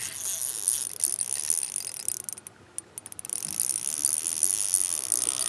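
Abu Garcia Revo MGX baitcasting reel clicking with a fast, fine ticking while a hooked fish is fought. It stops for about a second midway, then starts again.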